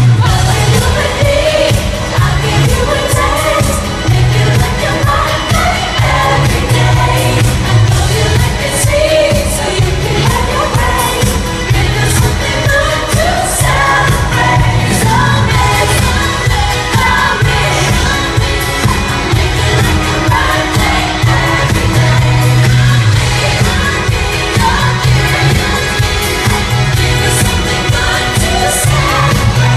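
Live pop song played at an arena concert: a female lead singer over a full band with a heavy bass line, the crowd singing along, heard loud through a phone's microphone.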